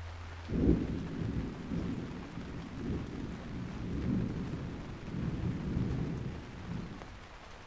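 A long roll of thunder over steady rain. The low rumble starts about half a second in and fades away near the end.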